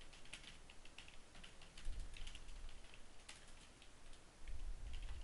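Faint typing on a computer keyboard: quick runs of key clicks separated by short pauses.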